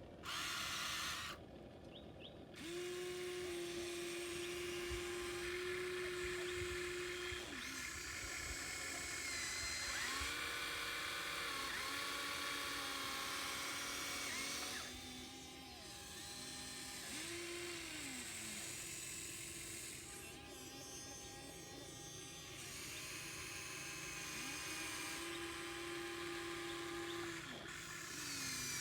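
Small electric motors of a remote-controlled model excavator whining in a series of runs, the pitch sliding up as each starts and down as it stops.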